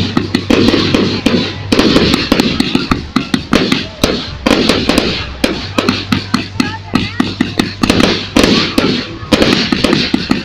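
Fireworks display going off in a rapid barrage: many sharp bangs and pops, several a second, over continuous crackling.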